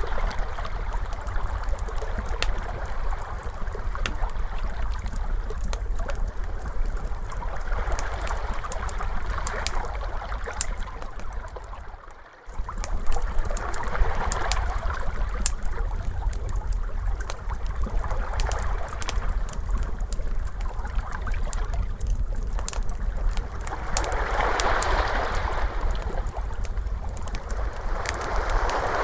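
Crackling fire over ocean waves: many small sharp crackles, with waves washing in and swelling every five seconds or so over a steady low rumble. The sound drops away for a moment about twelve seconds in, then carries on.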